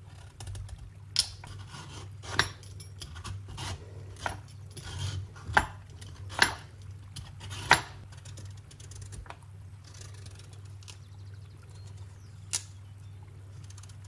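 Kitchen knife peeling the rind off a pumpkin on a wooden cutting board: quiet scraping and slicing, broken by a run of sharp taps of the blade on the board in the first half and one more near the end.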